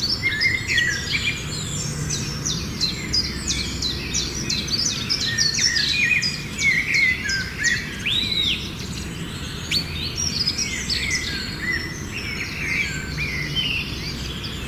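Many birds chirping and calling at once in a dense chorus of quick chirps and short whistles, over a steady low hum.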